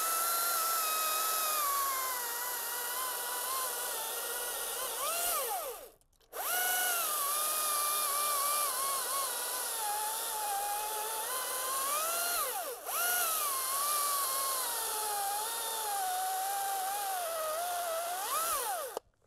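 Husqvarna T540i XP battery top-handle chainsaw cutting three cookies off a 7-inch spruce log. The electric motor's whine sinks in pitch as the chain bites into the wood and rises sharply as each cut breaks through, with short stops between the cuts.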